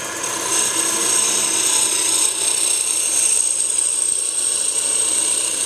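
Wood lathe running with a wood blank spinning, a steady high whine over an even hiss, as a roughing gouge works the turning.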